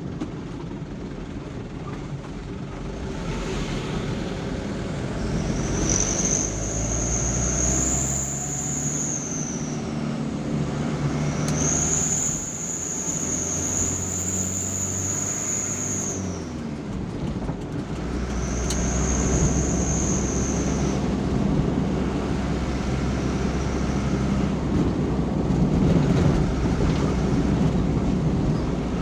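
Engine and road noise of a moving road vehicle, the engine hum changing pitch a few times, with a high whine that rises in and fades out three times.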